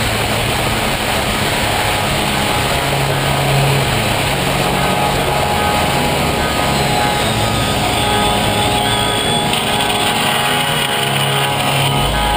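Sport motorcycle at speed: steady engine and wind rush on a bike-mounted camera, with a rock song mixed in.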